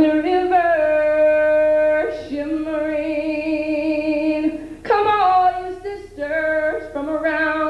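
A woman singing wordless long held notes: a sustained note for about two seconds, a second long note, then a string of shorter notes stepping up and down in pitch.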